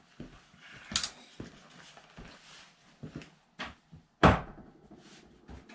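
Sharp metallic knocks and clanks of hand tools being handled, a long 22 mm socket among them, with a loud strike about a second in and the loudest about four seconds in.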